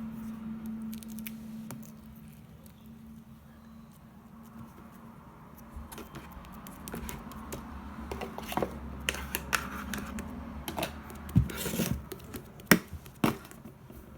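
Hands pressing and poking a two-layer slime, making irregular sticky clicks and pops that grow more frequent and louder from about six seconds in.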